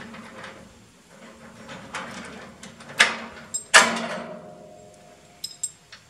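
Steel hitch gear between a tractor and a small trailer being worked by hand: two sharp metal clanks about three and four seconds in, the second ringing on for about a second, then a few light metallic clinks, over a low steady hum.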